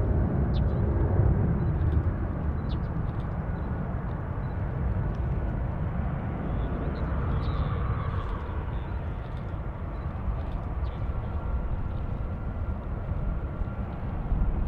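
Airbus A350's Rolls-Royce Trent XWB turbofans running at taxi power: a steady low rumble with a thin, faint high whine above it.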